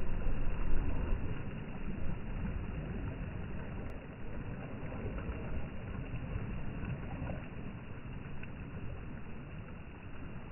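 Wind rumbling on a phone microphone, mixed with small sea waves washing onto the sand. It is louder for the first second or so, then steady.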